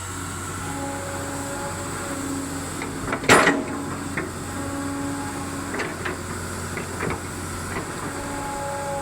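Excavator running with a steady low engine drone, a whine that comes and goes several times, a loud clank about three seconds in, and a few lighter knocks.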